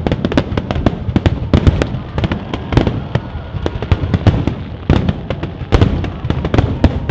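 Aerial fireworks shells bursting in a rapid, continuous barrage: many sharp bangs a second, overlapping one another over a low rumble.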